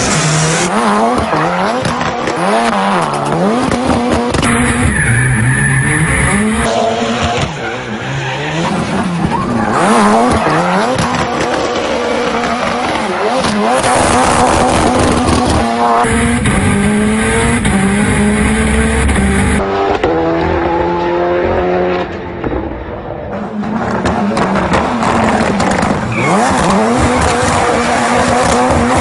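Ford Fiesta rally car's engine revving hard, rising and falling again and again as it drifts, with tyres squealing and skidding. The sound changes abruptly several times.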